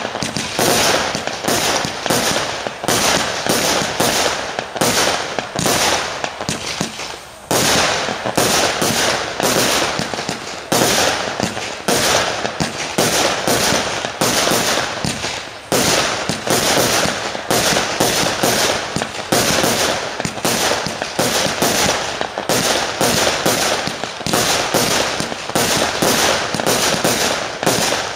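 A 61-shot fireworks cake firing: a rapid, continuous string of shots launching and bursting overhead, with a brief gap about seven seconds in.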